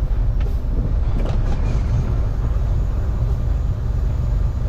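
Semi-truck driving: a steady low engine and road rumble.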